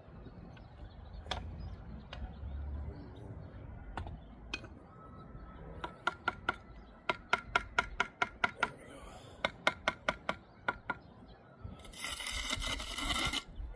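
Bricklaying work: a run of quick, sharp metal taps with a short ring, in the pattern of a steel trowel tapping bricks and mortar, then a loud scraping rush near the end.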